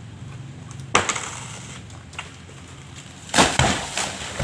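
The crown of a coconut palm snaps off with a sharp crack about a second in, then crashes to the ground with a cluster of heavy thuds about three and a half seconds in.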